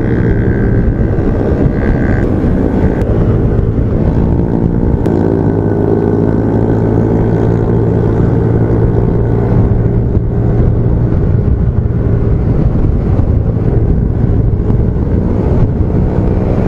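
Yamaha NMAX 155 scooter's single-cylinder engine running at a steady cruise while ridden, its note changing slightly about five seconds in.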